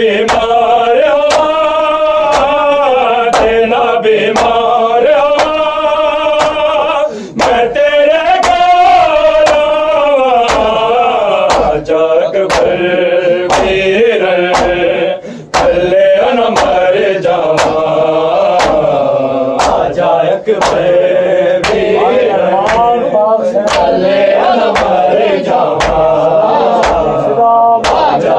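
A noha, a Shia mourning lament, chanted by a male voice. It is accompanied by steady sharp beats about two a second: the mourners' chest-beating (matam) keeping time.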